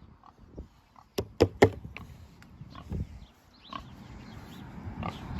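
Farm animals making short low calls, with three sharp clicks or knocks a little over a second in.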